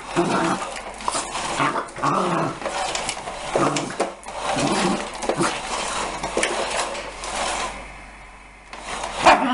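A puppy play-growling in short repeated bursts, with a few sharp knocks in between; it eases off briefly near the end, then gives one loud burst.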